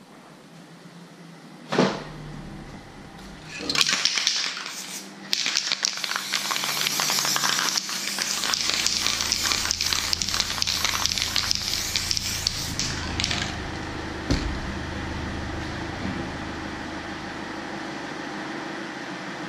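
Aerosol spray-paint can hissing in a long spray, sputtering and crackling, after a sharp click. A low steady hum comes in about halfway through and continues after the hiss stops.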